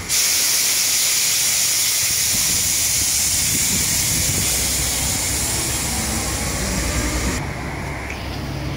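Steady, loud hiss of a high-pressure water jet spraying, which drops away near the end.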